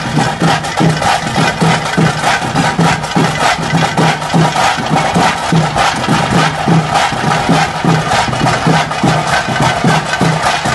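Tase drums beating the fast, steady rhythm that drives a pili vesha tiger dance, about three strokes a second.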